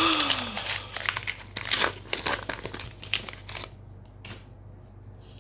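Booster pack wrapper crinkling and tearing open, with dense irregular crackles for about three and a half seconds, then only a few soft rustles.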